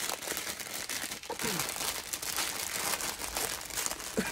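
Small clear plastic bags of diamond painting drills crinkling steadily as they are handled and pushed into a larger plastic bag.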